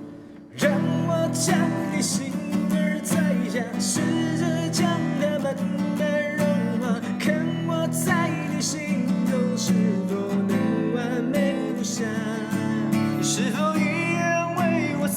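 Acoustic guitar music with strummed chords and a voice singing over it. The music dips briefly at the very start and comes back in full about half a second in.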